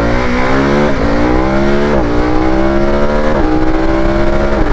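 KTM 1290 Super Adventure S's V-twin engine accelerating hard through the gears: the pitch climbs steadily in each gear and drops sharply at each upshift, about once a second.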